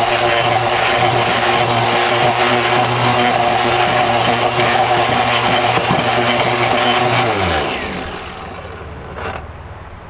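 Mighty Mill hammer-mill ore crusher running at speed, with a charge of electronic connectors rattling and being beaten inside its chamber. About seven seconds in it is switched off and spins down, its pitch falling away. A single knock follows shortly after.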